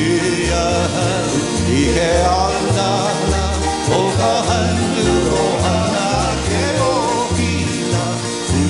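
Hawaiian string band playing: upright bass plucking steady notes on the beat under strummed acoustic guitar and ukulele, with a voice singing the melody.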